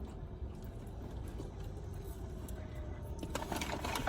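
Steady low rumble, like a car's surroundings, and from about three seconds in a run of crinkling and clicking, typical of fast-food paper packaging being handled.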